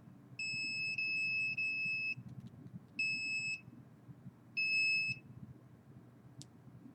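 A handheld electronic device beeping: a steady high-pitched tone sounding in bursts, first one long beep of well over a second with two brief breaks, then two shorter beeps about a second and a half apart.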